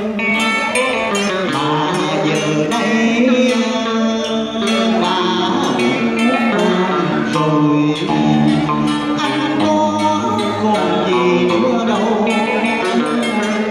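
Vietnamese cải lương singing accompanied by an electric guitar plucking the melody.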